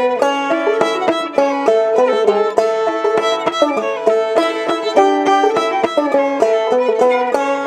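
Clawhammer banjo and fiddle playing an old-time tune together: a steady, driving run of plucked banjo notes under held, bowed fiddle notes.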